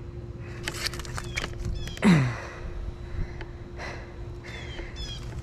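A man gives one groaning sigh that falls steeply in pitch, about two seconds in, after crashing a dirt bike. A few clicks and scuffs come before it, with faint chirps in the background.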